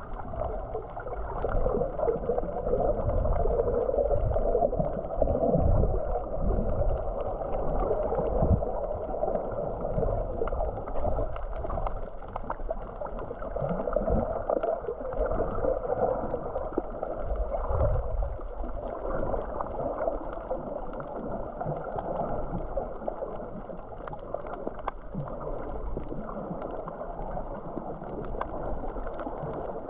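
Muffled rushing and gurgling of water heard through an action camera held underwater, with a few dull low thumps.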